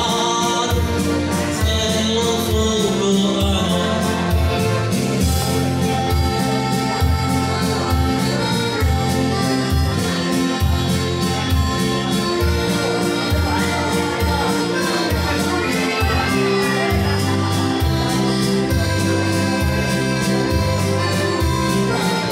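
Live dance music from a keyboard player, with a steady, even bass beat under a sustained melody.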